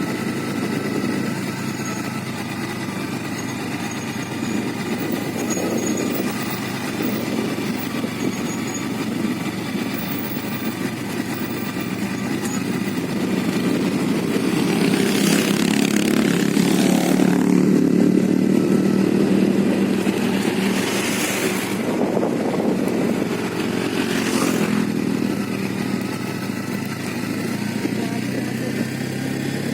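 Motorcycle engine running steadily, growing louder through the middle, with a few brief rushes of passing traffic.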